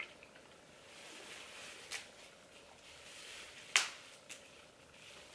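Crab shell being snapped apart by gloved hands: a small crack about two seconds in and a sharp, louder one near four seconds, with a faint rustle of plastic gloves and bag between.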